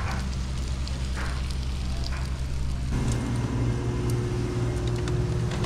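Crackling from a charcoal grill as bacon-wrapped kingfish pieces cook on foil, with faint scattered ticks over a steady low hum that grows stronger about three seconds in.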